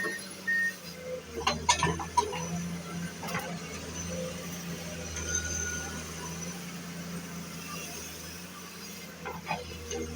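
An engine running steadily at a low pitch, with a cluster of sharp clatters or knocks about one and a half to two seconds in and a few more near the end.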